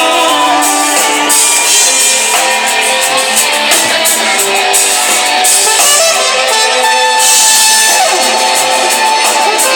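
Live rock band playing an instrumental passage between sung lines: strummed electric guitar over drums, heard with very little bass.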